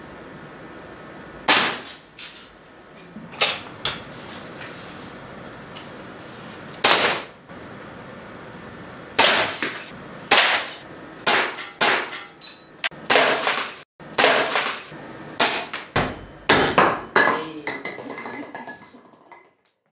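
A series of sharp snapping knocks, each with a short ringing tail. They are spaced a second or more apart at first, then come several a second for the last third, before dying away.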